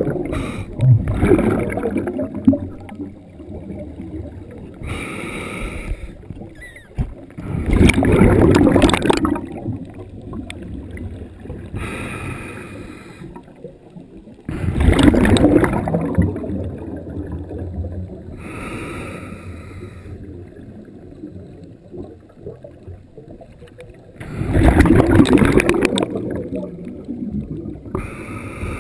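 Scuba diver breathing through a regulator, heard through a GoPro dive housing: a short wheezy inhale, then a loud rush of exhaled bubbles, repeating roughly every eight to ten seconds.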